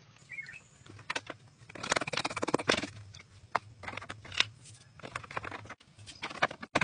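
Split bamboo strips and poles clicking and clattering against each other as they are handled and laid. Sharp single knocks come between short dense runs of rattling clicks.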